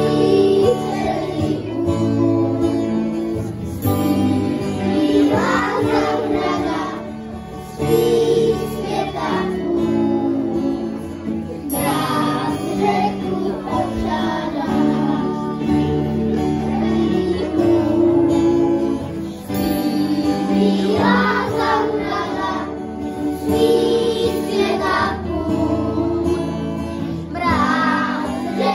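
A group of young children singing a Christmas song together into microphones, amplified through a PA, with instrumental accompaniment.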